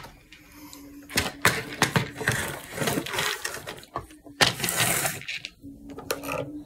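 Small objects being handled and rummaged through close to a phone's microphone: clicks, clatter and rustling, busiest from about one to five seconds in. A faint steady hum shows in the quieter moments.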